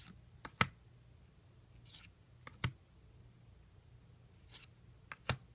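Weiss Schwarz trading cards being flipped through by hand. Three times, about two seconds apart, a short swish of a card sliding off the stack is followed by two sharp snapping clicks.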